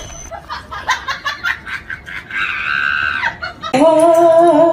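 A small dog howling, one long steady note that starts loud near the end, after a few scattered short sounds and a brief higher held call.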